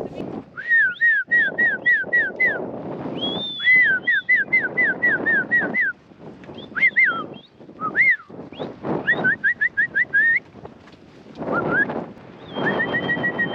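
Several quick runs of high whistled notes, about six short down-slurred notes a second, broken by short pauses, over rough rustling and wind noise on the microphone.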